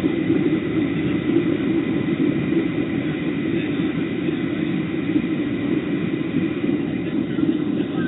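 Steady airliner cabin noise on approach: the low rumble of the engines and airflow, with a faint steady high whine over it.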